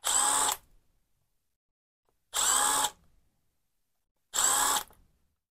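Small cordless power driver spinning out screws in three short runs of about half a second each, roughly two seconds apart, each a steady motor whine: backing out the screws of a chainsaw carburetor's cover plate.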